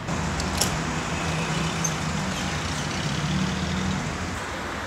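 Road traffic: a motor vehicle's engine running close by as a steady low hum over traffic noise, easing off near the end.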